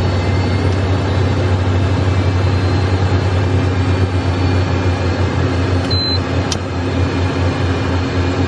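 Cessna Citation 501's twin Pratt & Whitney JT15D turbofans running on the ground, heard inside the cockpit as a loud, steady low drone with a faint high whine.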